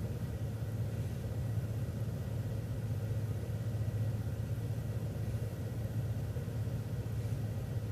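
City transit bus engine running steadily, heard from inside the bus as an even low rumble.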